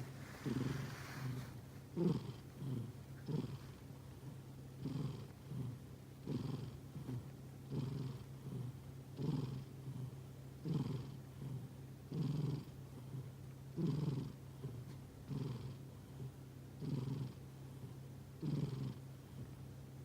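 Sleeping cat breathing noisily, a soft snore-like rasp on each breath, repeating evenly about once every second and a half.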